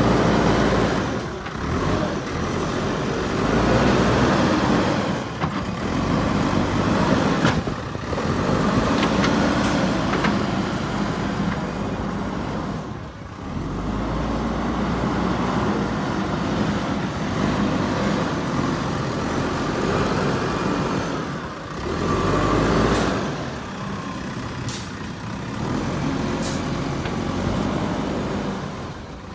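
JCB 3DX Super backhoe loader's diesel engine working under load as the machine pushes and levels soil with its front bucket. The engine note rises and falls every few seconds as the load changes.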